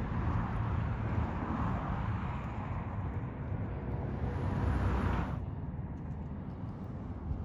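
Road traffic going by: a steady rumble of vehicles and tyres, which turns abruptly duller about five seconds in.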